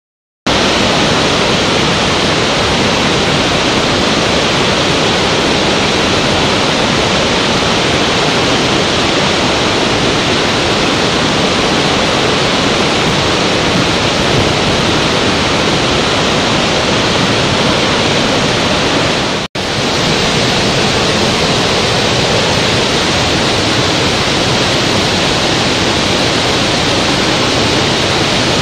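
Steady rushing roar of a large waterfall, starting abruptly and breaking off for an instant about two-thirds of the way through before carrying on unchanged.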